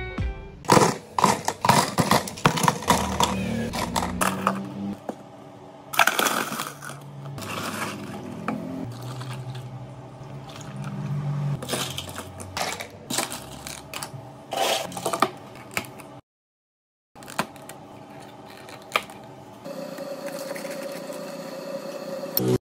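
Iced drinks being made: ice cubes clink and clatter into plastic cups, with scattered taps and scrapes of cups and utensils over soft background music.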